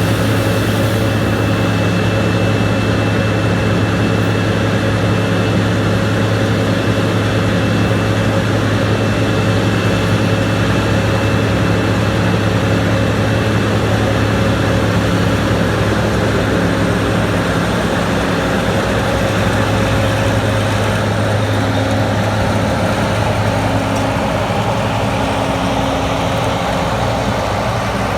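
Large diesel engine of heavy harvest machinery running steadily at constant speed: a continuous deep drone with a faint high steady whine above it.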